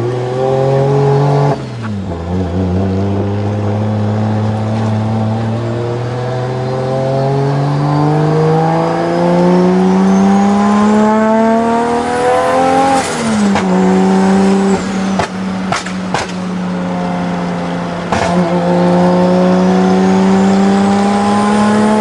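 Nissan Skyline R34's straight-piped RB26 twin-turbo straight-six, heard from inside the cabin. After a quick gear change about two seconds in, the engine note climbs steadily for about ten seconds under hard acceleration with a thin high whine rising alongside, then drops at an upshift and holds a steady cruise, with a few sharp cracks just after the shift.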